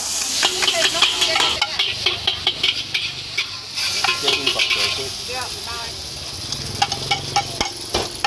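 Char koay teow frying in a wok: a steady sizzle with a metal spatula repeatedly scraping and clanking against the wok as the noodles are stir-fried.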